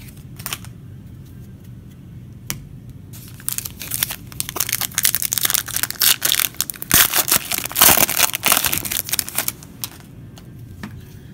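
Foil wrapper of a trading-card pack crinkling and tearing as it is ripped open: a couple of single clicks, then a dense crackle lasting about six seconds, loudest in its second half.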